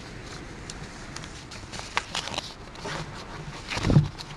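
Paper rustling with small clicks and scrapes at the lectern microphone, then one heavy thump near the end.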